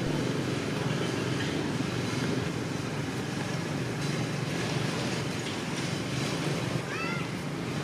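Wind buffeting the microphone: a steady low rumble. A brief high chirping call sounds near the end.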